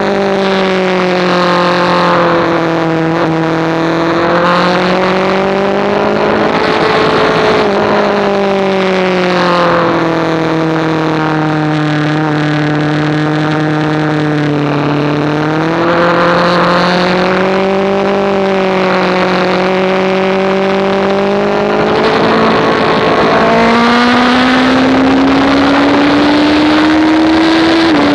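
Sport motorcycle engine heard onboard at moderate track pace, its pitch rising and falling with the throttle over a steady wind rush. Over the last few seconds the pitch climbs steadily under acceleration, then drops suddenly at the very end as it shifts up a gear.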